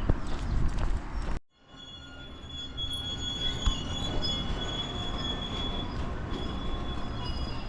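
Commuter train running, its wheels squealing on the rails in steady high tones over the rumble, after a brief cut in the sound about a second and a half in.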